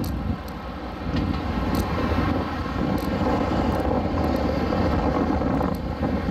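Wind buffeting the microphone of a smartphone on a moving bicycle, a steady low rushing noise, with road traffic beneath it.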